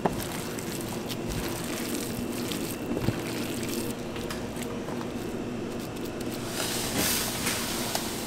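Wet squishing and small crackling clicks of chopped raw shrimp being kneaded and squeezed by gloved hands in a plastic food pan, over a steady low hum. Near the end a louder rushing hiss as dry breadcrumbs pour into a stainless steel tray.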